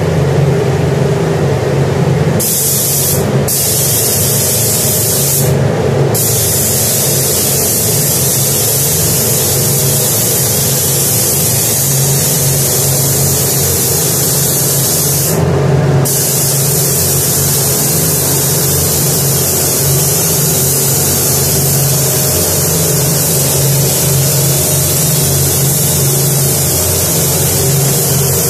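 Pneumatic gravity-feed spray gun hissing steadily as paint is sprayed, cutting out briefly three times when the trigger is let go, over a steady low hum.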